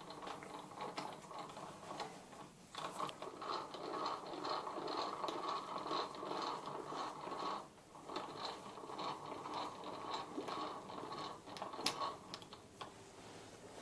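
Three-jaw lathe chuck being fitted on the spindle and its jaws wound with a T-handle chuck key: a gritty metallic ratcheting rattle in two long runs, with a short break just under eight seconds in.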